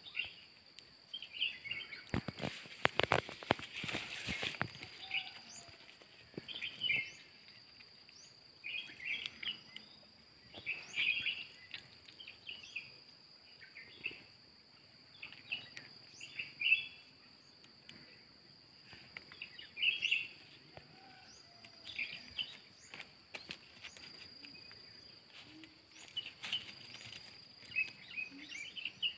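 Rural outdoor ambience: a steady high insect drone with short bird chirps repeating every second or two. About two to four seconds in, a quick run of clicks and crackles is the loudest sound.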